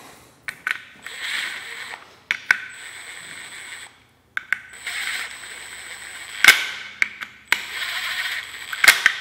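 Cordless impact driver running bolts down into an aluminium motor end bell in three short spins of a second or so each, with sharp clicks between them.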